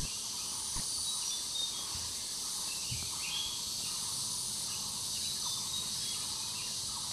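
Forest ambience: a steady high insect drone with a few faint, short bird chirps.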